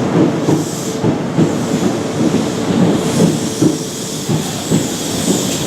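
InterCity 125 High Speed Train, led by Class 43 power car 43017, running into the station: diesel engine and wheels on the rails, with irregular knocks and a hiss over the top.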